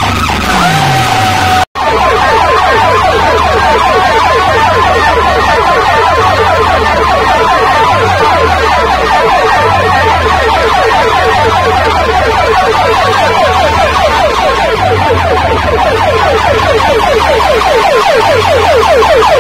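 Siren-like electronic effect blasted through banks of horn loudspeakers and bass boxes: a fast, evenly repeating rising wail over a pulsing bass beat, very loud. The sound cuts out for an instant just under two seconds in.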